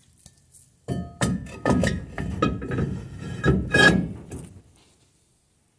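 Irregular metallic knocks and clanks with brief ringing, starting about a second in and stopping shortly before the end, from drum brake parts and tools being handled.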